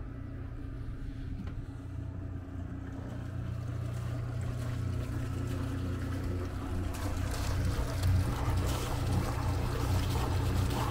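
Westerbeke 7.2 kW gasoline generator running at a steady 3,600 rpm, a constant low drone. From about halfway through, the splashing of its cooling water pouring out of the exhaust outlet in the hull side into the water grows louder.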